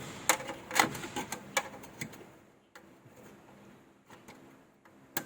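Clicks and knocks of desktop computer case parts being handled and fitted back into place: a quick run of sharp clicks in the first two seconds, then quieter handling, with one more sharp click near the end.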